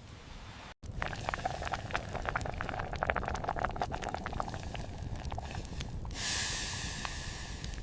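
Liquid bubbling and popping in a pot, a dense run of small pops. About six seconds in, a steady bright hiss joins it.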